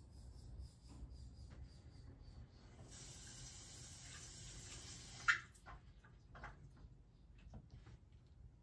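Off-screen running water hissing steadily for about two seconds during toilet cleaning, stopping with a sharp click. Faint light ticks and knocks come before and after it.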